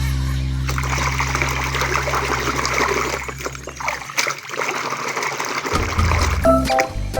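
Water running and splashing steadily as muddy toy guns are washed.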